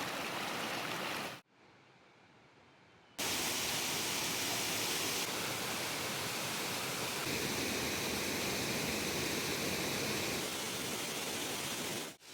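Waterfall rushing steadily as an even roar of water. The sound changes abruptly between spliced shots, with a much quieter stretch a second or so in, then the full rush again.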